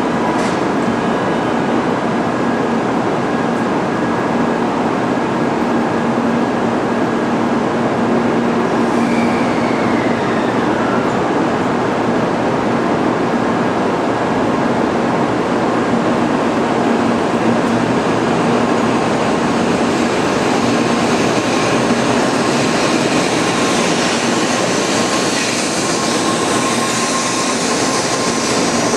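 Shinkansen train running at speed: a steady, even rumble and rush of wheels on rail and air, with a faint falling tone about ten seconds in.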